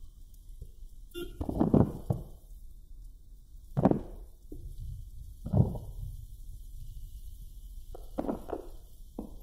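A car on the road heard from inside the cabin: a steady low rumble, broken by short thumps about every two seconds.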